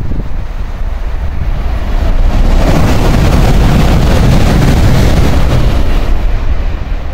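N700-series Shinkansen train passing through the station at high speed without stopping: a rushing roar that swells sharply about two and a half seconds in, holds for a few seconds, then fades. Wind buffets the microphone throughout.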